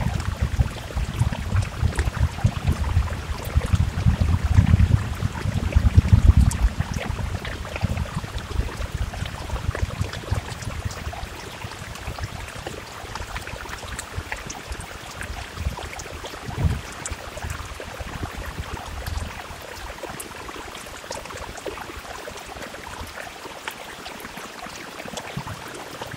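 Steady rain with many small, sharp drop ticks. A low rumble under it for the first several seconds dies away, leaving the rain alone.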